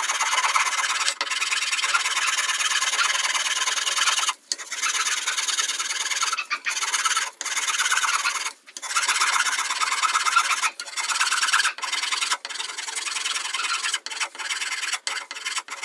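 Flat metal file rasping over a wooden filler strip set into a guitar neck, trimming it flush with repeated strokes. The rasping is near-continuous, broken by a dozen short pauses between strokes.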